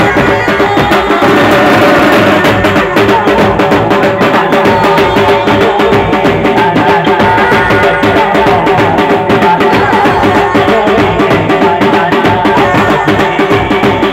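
Loud, fast drumming on large bass drums struck with beaters, keeping a steady dance beat under a sustained melody.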